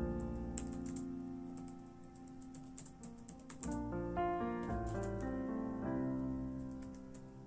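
Computer keyboard typing, irregular key clicks over soft melodic background music.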